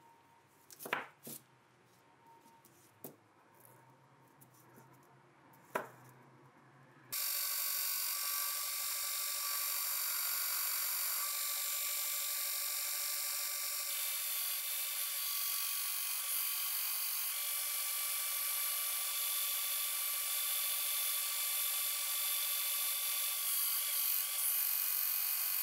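A few light clicks of small metal parts being handled, then, starting abruptly about seven seconds in, a belt grinder running steadily with a whine as a small metal part is ground against its belt.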